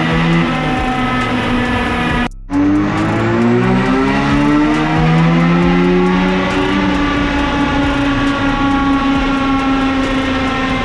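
Mazda RX-8's 13B two-rotor rotary engine revving up under load on a chassis dyno during a power run. The pitch climbs steadily, breaks off for a moment about two seconds in, climbs again to high revs, then holds level near the end.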